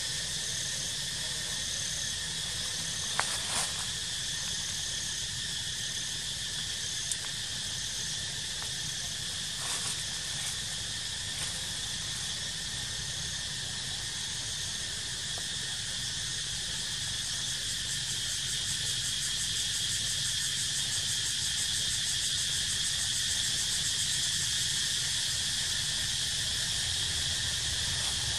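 Steady high-pitched chorus of insects, with a faint repeating chirp pattern over it, swelling a little after halfway. A few short clicks come through at about three, seven and ten seconds in.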